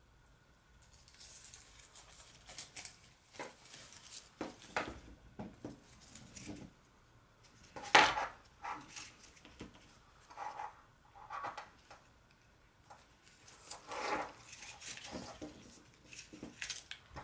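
Hands handling a braided latex travel clothesline and its mesh pouch: irregular rustling and scraping, with scattered small clicks and one sharp click about eight seconds in.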